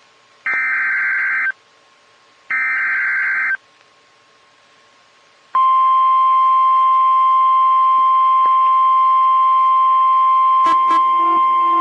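NOAA Weather Radio EAS alert signal: two short buzzing SAME data bursts, each about a second long and a second apart, then after a pause of about two seconds the steady 1050 Hz warning alarm tone starts, announcing a new severe thunderstorm warning.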